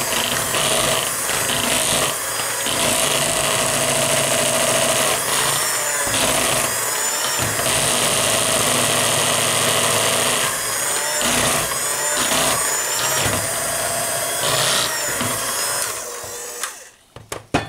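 Electric hand mixer running with its twin beaters in thick cake batter: a steady motor whine that wavers as the beaters drag through the batter. It is switched off near the end.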